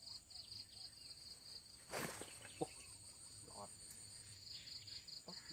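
Insects chirping in a rapid, steady pulsing trill, with one brief noise about two seconds in.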